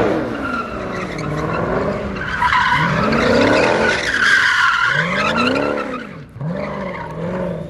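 A car doing donuts: its engine revs up and down again and again while the rear tyres squeal and skid, smoking on the asphalt.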